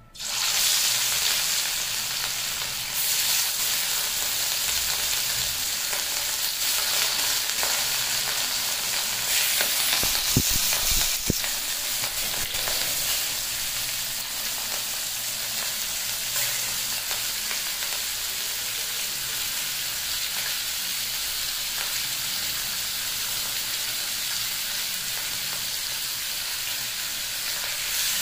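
Grass carp steaks, rubbed with salt and turmeric, sizzling steadily in hot vegetable oil in a steel kadai as they are laid in one after another. The sizzle starts suddenly as the first piece hits the oil. A few low knocks come about ten seconds in.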